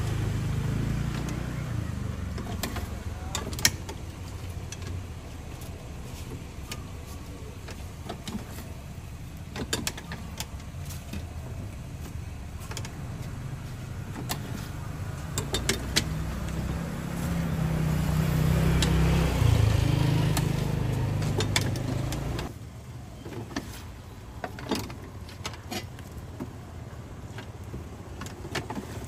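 A motor vehicle's engine running close by, swelling louder and then cutting off suddenly about three-quarters of the way through. Sharp clicks and knocks of a hand-lever metal lime squeezer and a knife on limes come throughout.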